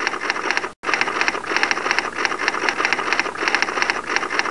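Typewriter sound effect clacking rapidly as on-screen text types out letter by letter, with a brief break just under a second in.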